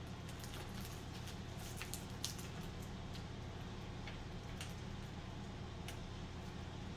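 A knife slicing a jerky meat stick on a cutting board: faint scattered clicks and taps over a steady low room hum.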